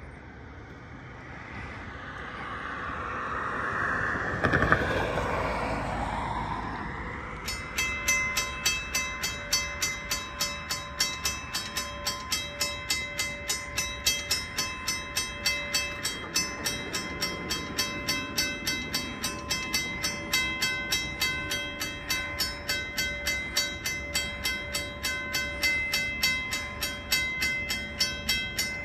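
A road vehicle passes over the crossing, its sound swelling and falling away. About seven seconds in, the railway crossing's warning bell starts ringing in evenly repeated strikes, about two a second, as the signals activate for an approaching train.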